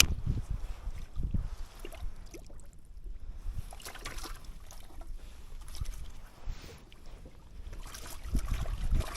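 Water lapping and trickling against the hull of a small drifting boat, with wind buffeting the microphone in low rumbling gusts at the start and again near the end.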